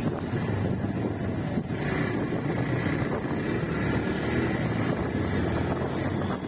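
Motorcycle running at riding speed, with wind rushing over a phone microphone: a steady, unbroken noise with no pauses.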